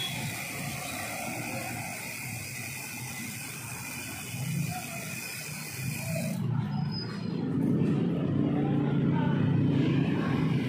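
Street traffic noise heard from a moving bicycle, with a motorcycle engine running close alongside and getting louder in the second half.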